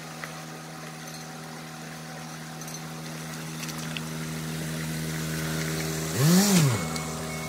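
Ford Ranger pickup's diesel engine running at low revs as the truck crawls through a shallow stony stream ford, growing louder as it comes closer. About six seconds in the engine revs briefly up and back down, with a short rush of noise as the truck passes close by.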